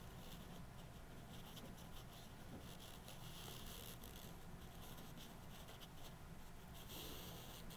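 Faint, intermittent scratchy rustling of fabric bias tape being drawn across the cloth ironing-board cover, under a pin and the resting iron, over a low steady room hum.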